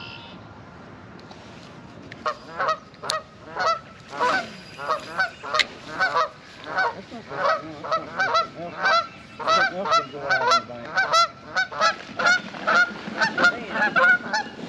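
Geese honking over and over, about two calls a second, starting about two seconds in.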